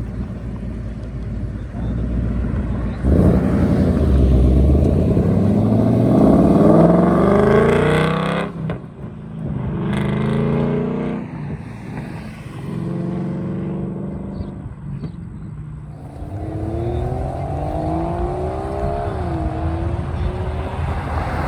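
Car engines accelerating hard as cars pull away one after another. One comes in loud about three seconds in, its pitch climbing steeply until it drops off around eight seconds. Shorter rising runs follow, and another car's engine climbs in pitch near the end.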